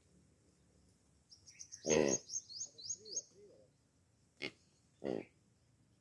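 Short, low calls from the blackbuck herd: a loud one about two seconds in and two briefer ones near the end. Around the first call a small bird gives a quick run of high chirps.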